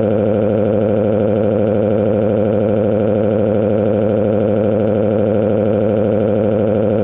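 Synthesized emergency-alert attention tone: a loud, low, buzzy tone with a fast warble, held steady without a break.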